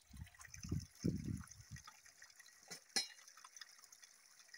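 Scuffing footsteps and bumps of someone clambering down a slippery, wet, moss-covered rock gully, with two short sharp knocks about three seconds in, over a faint trickle of water.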